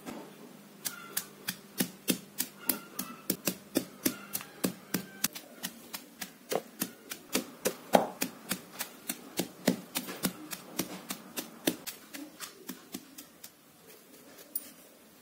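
A pestle pounding dry grated coconut and dried red chillies in a stone mortar, with sharp knocks about three a second that thin out and stop near the end.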